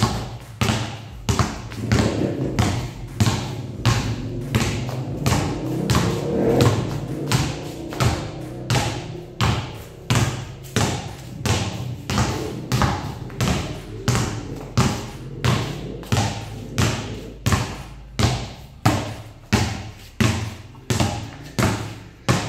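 Two basketballs dribbled on a stone tile floor: a steady run of bounces, about two a second.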